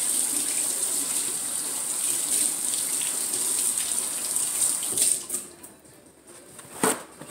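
Kitchen sink tap running as hands are rinsed of raw chicken, shut off about five seconds in. A single sharp knock follows near the end.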